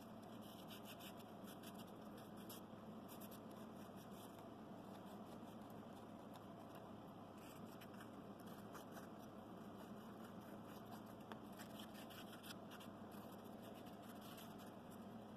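Faint, irregular scratching of sandpaper rubbed by hand along the edges of thin scroll-sawn wood pieces, over a steady low hiss.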